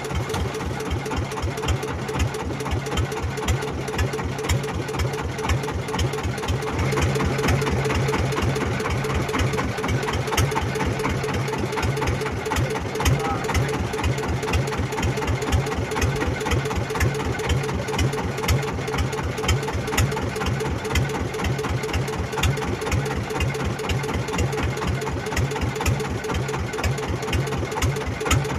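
Small fishing boat's engine running under way, with a steady rapid pulsing beat; it picks up slightly about seven seconds in.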